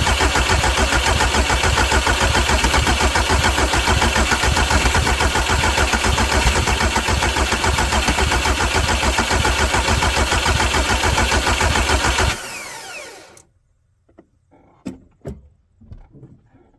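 Volkswagen Jetta TDI diesel engine being cranked on its starter with the injector lines cracked open to bleed air after a fuel filter change, turning over in a fast even rhythm without catching. The cranking stops about twelve seconds in and the engine spins down, followed by a few light knocks.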